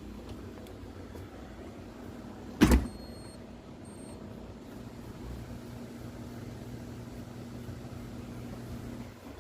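A single sharp knock, followed by a few short high electronic beeps. About halfway through, a small electric motor starts and hums steadily at a low pitch.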